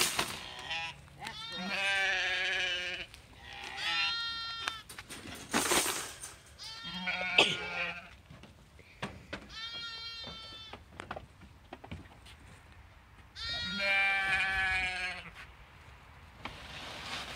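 Livestock bleating: a series of about five long, wavering bleats a few seconds apart. Two sharp clatters from wire crates being unloaded come near the middle, the second the loudest sound.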